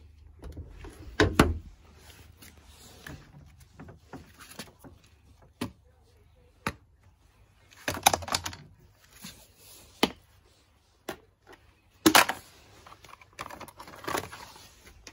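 Car hubcaps being handled, knocking and clattering against each other and the paving in a series of sharp knocks. The loudest come about a second in and about twelve seconds in.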